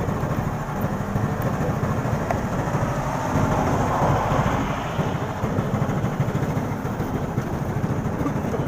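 Steady city road traffic noise, with one vehicle passing louder around four seconds in.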